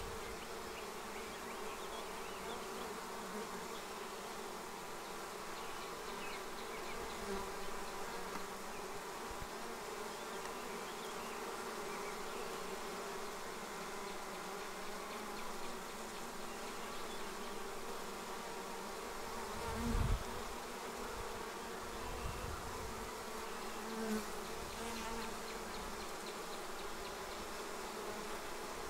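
Steady hum of a honeybee swarm clustered at the entrance of a nucleus hive, the bees buzzing as they move up out of the net into the hive. A brief dull thump about twenty seconds in.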